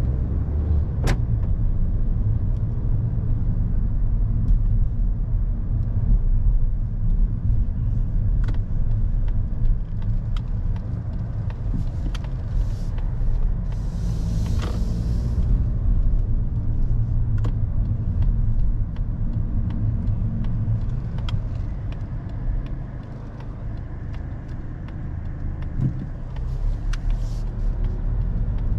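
A 2022 Mazda3 with a 2.0-litre SKYACTIV-G four-cylinder driving on a street: a steady low rumble of engine and road noise, with scattered sharp ticks and a short hiss about halfway through.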